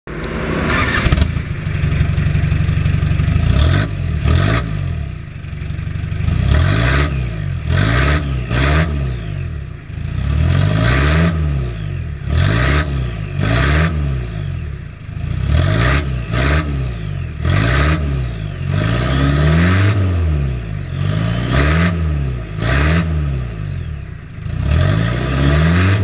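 Turbocharged Isuzu KB2200 pickup engine revved over and over through a straight-through steel exhaust pipe. The pitch climbs and drops back in quick, repeated blips.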